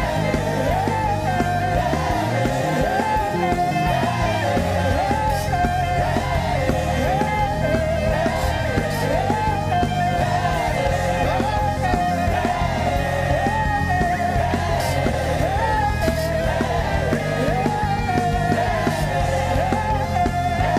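Live worship band music with singing: a winding melodic line over sustained bass, playing continuously.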